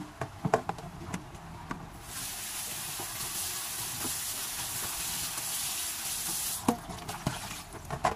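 Kitchen tap water running into an aluminium pot of cut eel pieces being rinsed in a steel sink, starting about two seconds in and shutting off shortly before the end. Before and after, the pot and a plastic basin knock and clatter as they are handled.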